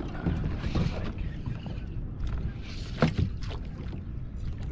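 Water lapping against a plastic kayak hull, with wind on the microphone. About three seconds in come a couple of sharp knocks as gear is handled against the hull.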